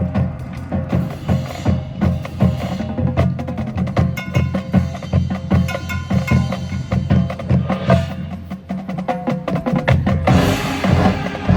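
High school marching band playing a percussion-heavy passage: drums struck in a quick, busy rhythm under sustained pitched notes. The band gets louder and fuller about ten seconds in.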